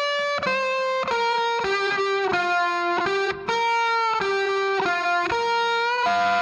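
Background music: a guitar, likely electric, plays a melody of single held notes, about two a second, with no drums.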